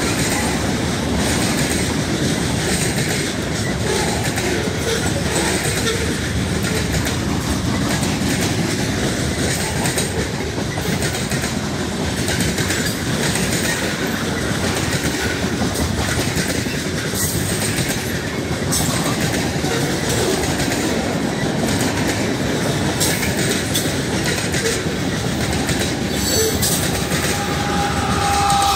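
Loaded freight cars (covered hoppers and tank cars) of a passing freight train rolling steadily by, their steel wheels clacking over the rail joints.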